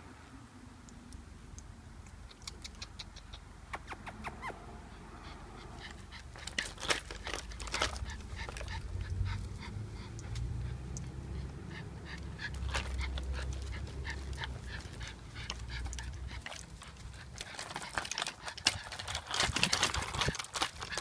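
Small dog walking in a four-wheeled dog wheelchair cart on a concrete sidewalk: scattered light clicks and rattles from the cart's frame and wheels and the dog's movement, over a low rumble.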